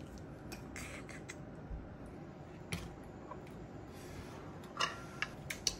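A few faint clicks and taps of tableware being handled, scattered over a steady low hiss.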